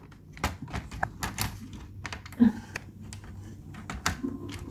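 Irregular light clicks and taps on an MSI GL62M 7REX laptop as it is handled after a RAM upgrade, several a second.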